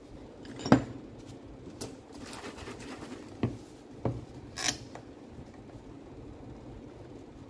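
A few sharp clinks and knocks of tools being handled and set down on a hard floor. The loudest comes about a second in, and three more follow between about three and a half and five seconds.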